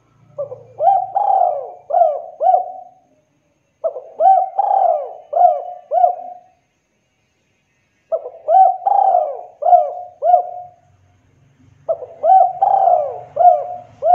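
Spotted dove (derkuku) cooing: four repeated song phrases, each a quick run of about five rising-and-falling coos, with short pauses between them.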